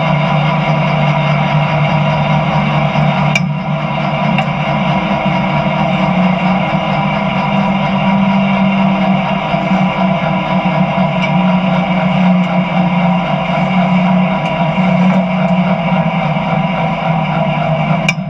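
Jet engine of a jet-powered semi truck idling steadily: a loud, even turbine whine made of several held tones over a low rumble.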